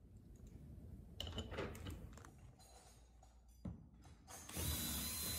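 Cordless drill-driver running for about a second near the end, on bolts for a stainless-steel winch mounting. Before it come scattered clicks and knocks of parts being handled.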